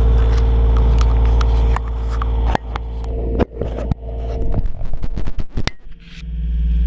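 Komatsu PC28 mini excavator's diesel engine running steadily. About two seconds in, it eases off and a run of sharp knocks and clatters follows, then the engine pulls back up near the end.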